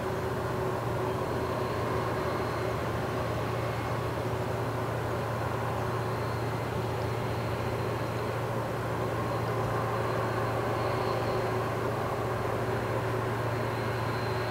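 Steady low drone of a passing lake freighter's engines, with a faint high whine above the hum.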